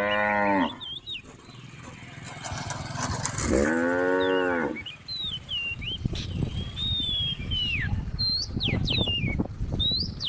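A cow mooing: the end of one moo right at the start, then a full moo about three and a half seconds in. Short high chirps sound through the second half.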